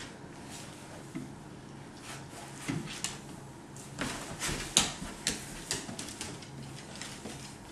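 A scattered series of light taps and knocks, the loudest about halfway through: a baby's hands patting the hardwood floor as he crawls.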